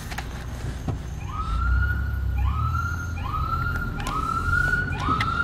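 Emergency vehicle siren sounding in a repeating pattern: each cycle sweeps up quickly to a high note and holds it, about once a second, starting about a second in.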